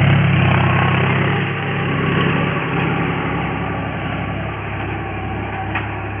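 Diesel engine of a John Deere tractor running steadily under load as it pulls a tillage implement through the field. It fades gradually as the tractor moves away.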